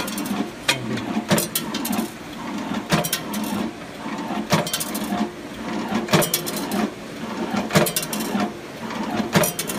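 Mini CNC spring-bending machine running through its forming cycles: its motors whirr steadily, with a sharp click about every second and a half as each cycle repeats.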